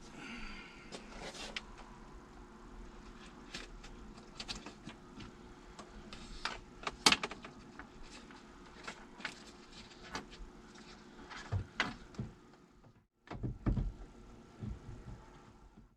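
Scattered clicks, taps and knocks of hands and tools working on a car door while a side mirror is being fitted, with the sharpest knock about seven seconds in and a cluster of knocks near the end.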